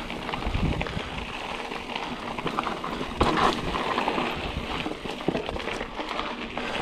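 Mountain bike riding down a dirt trail: steady rolling noise of the tyres on dirt and leaf litter, with many small rattles and knocks from the bike and a louder knock about three seconds in.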